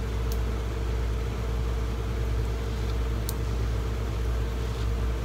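Steady low background hum with a faint steady whine above it, broken only by two faint ticks.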